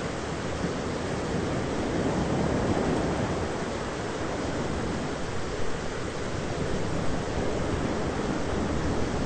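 Thunderstorm ambience: a steady rushing wash of storm noise with a low rumble in it, swelling gently a couple of seconds in.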